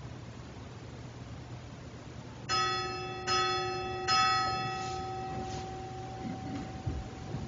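A bell struck three times, a little under a second apart. Each stroke rings on with a clear, steady tone that slowly fades.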